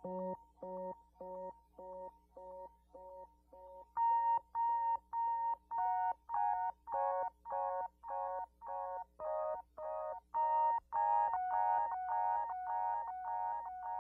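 Electronic music made of short beeping notes at about two a second. From about four seconds in the beeps get louder, then faster, with more notes layered into a shifting pattern.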